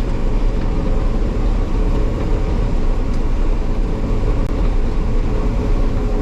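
Combine harvester running steadily while picking corn, heard from inside the cab: a continuous machine drone with a faint steady whine over it.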